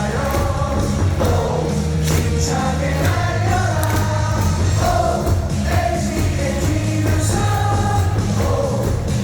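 Baseball stadium crowd singing a player's cheer song together in unison over loud amplified music with a steady bass beat.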